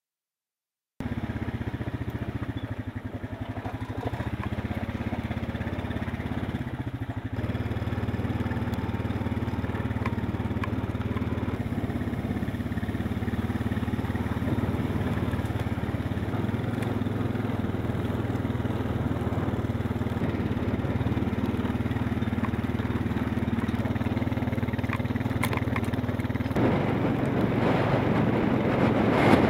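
Quad bike (ATV) engine running steadily while being ridden across rough pasture. It starts about a second in, and there is a louder, noisier rush near the end.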